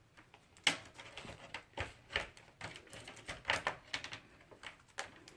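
Irregular light clicks and taps of a replacement laptop screen panel being handled and fitted into place, about a dozen in all, the louder ones about a second apart.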